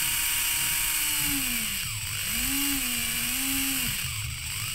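A 360-degree servo motor (LS-3006) whirring as it drives a 3D-printed Geneva mechanism, with a steady whine. The pitch falls and rises again about two seconds in, then dips and climbs once more near the end, as the speed knob on the servo tester is turned.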